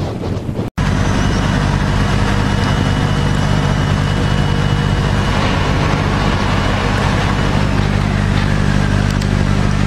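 Boat engine running steadily with a low, even drone under a haze of water and wind noise. The drone starts abruptly under a second in, after a moment of wind noise.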